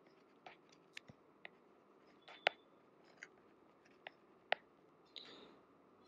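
Faint, irregular sharp ticks and taps of a stylus writing on a tablet, about a dozen in all, over a low steady hiss.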